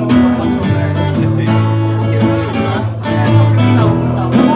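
Music: an instrumental passage of a song led by guitar, with a steady beat and no singing.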